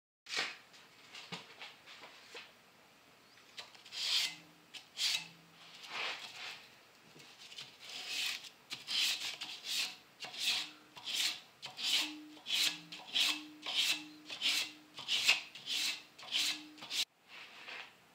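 Sandpaper hand-sanding a steel knife blade forged from a railroad spike: rasping back-and-forth strokes, uneven at first, then a steady run of about two strokes a second that cuts off suddenly near the end.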